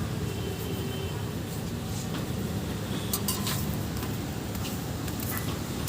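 Steady rumble of street traffic, with a few short clicks and clinks scattered through it.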